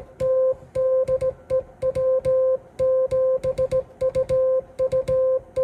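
Morse code sidetone from a Yaesu FTDX-101MP transceiver, a steady beep keyed on and off by hand with a straight key in uneven dots and dashes, the key's contacts clicking at each stroke. The straight key keys the radio properly from the front jack.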